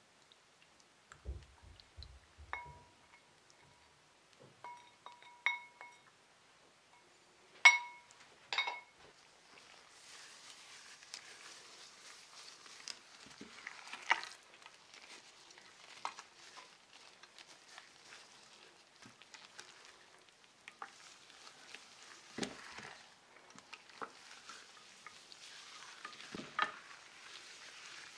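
A few ringing clinks of glass and ceramic, the loudest about eight seconds in. From about ten seconds on, the wet squishing and smacking of gloved hands massaging a sticky soy-and-honey marinade into a raw pork neck roast in a ceramic baking dish.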